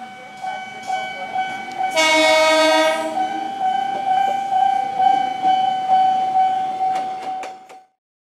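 Railway level-crossing alarm (Nippon Signal) ringing in a steady repeating pattern, while a KRL electric commuter train sounds its horn for about a second, about two seconds in. A few sharp clicks come near the end, and then the sound cuts off.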